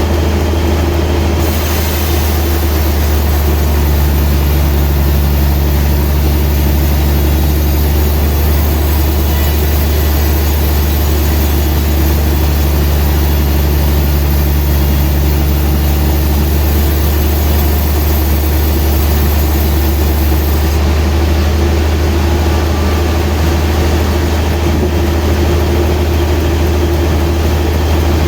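Sawmill machinery running steadily with a deep engine hum. A high hiss comes in about a second and a half in and stops about twenty seconds in.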